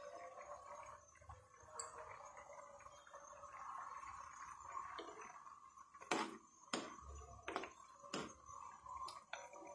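Pasta boiling in water in a non-stick frying pan, a faint steady bubbling. From about six seconds in, a spoon stirs it, knocking against the pan with several sharp clinks.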